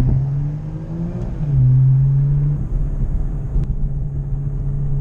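BMW M340i's turbocharged 3.0-litre inline-six pulling under acceleration. The engine note rises in pitch, drops at an upshift about a second and a half in, then holds steady at cruising speed.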